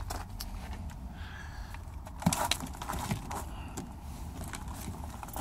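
Scattered handling clicks and knocks from someone moving about inside an old car's interior, the sharpest a little over two seconds in, over a low steady rumble.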